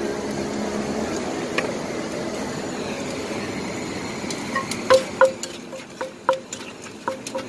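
A steady drone for the first few seconds, then a wooden pestle pounding in a clay mortar as som tam is made: sharp knocks with a short ringing tone, about two or three a second, starting about four and a half seconds in.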